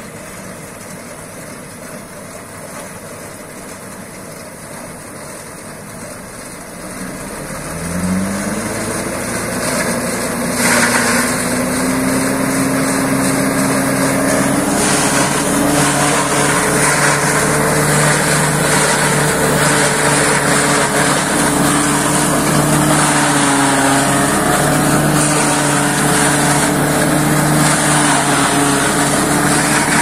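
Silage harvester running, at first at low speed. About eight seconds in it is throttled up: the pitch rises and levels off, and the machine settles into a loud, steady working hum.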